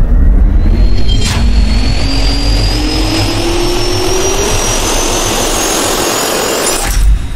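Jet turbine spool-up sound effect: a steady rush with a slowly rising whine, a short whoosh about a second in, and a sudden hit near the end where it cuts off.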